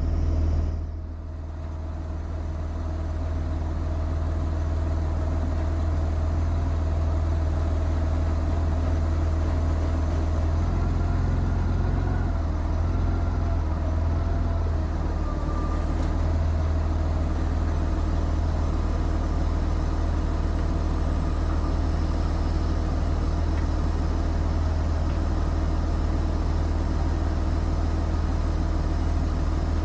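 Flatbed semi-truck engine running with a steady low drone, heard from inside the cab, dipping briefly about a second in before settling to an even level.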